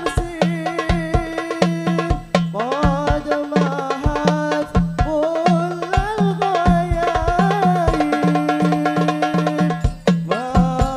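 Hadroh ensemble performing a sholawat: hand-struck frame drums keep a steady, fast rhythm under a sung Arabic devotional melody.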